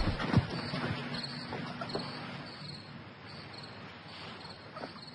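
Crickets chirping in short, evenly repeated chirps about twice a second, with a few faint knocks.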